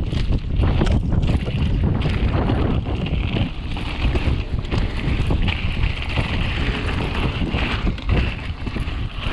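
Wind buffeting the microphone as a mountain bike rolls fast down a dirt trail, with the tyres crunching over dirt and the bike rattling over bumps.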